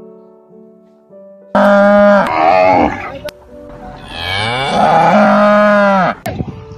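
Cows mooing: two loud, long moos, the first about a second and a half in and the second, longer one starting about four seconds in with a rise in pitch at its start, over soft background music.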